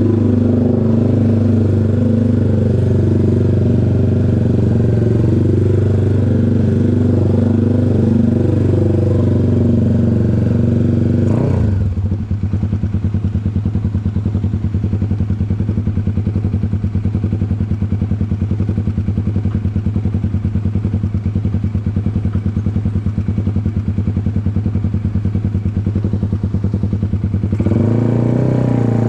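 Honda CBX 250 Twister's single-cylinder four-stroke engine, bored out to 79 mm and breathing through a custom-sized exhaust, running loud. It holds steady raised revs, gets a quick throttle blip about eleven seconds in, then drops to an idle with distinct, evenly pulsing firing strokes. The revs climb again near the end.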